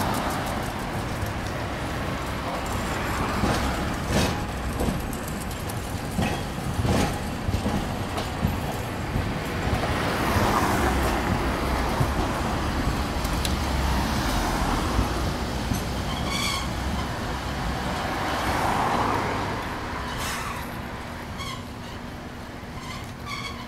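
Street traffic: cars passing close by with tyre noise swelling and fading several times, as an articulated low-floor Hakodate city tram of the 9600 series rolls past on street track. A short high ringing sound comes about two-thirds of the way through, and a steady low hum sets in near the end.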